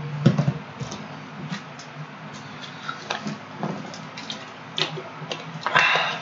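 Scattered light clicks and taps, a couple a second and irregular, over a steady low hum, with a short burst of noise near the end.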